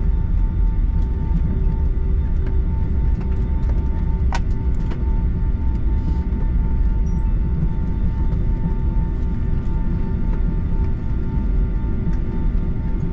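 Cabin noise of a Boeing 757-300 taxiing: a steady, loud low rumble from the jet engines and the rolling gear, with a constant hum over it. There is a single short click about four seconds in.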